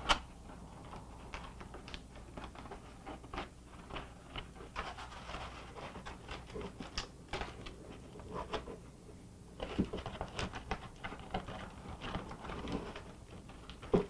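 Aluminum foil crinkling in irregular small crackles as hands crumple and press it around a glass ornament.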